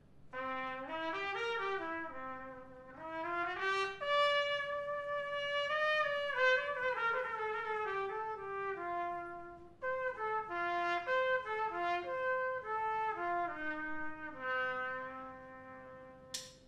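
Unaccompanied solo trumpet playing a slow melody, one note at a time, its phrases rising and falling with short breaks between them, ending on a long held low note that fades away.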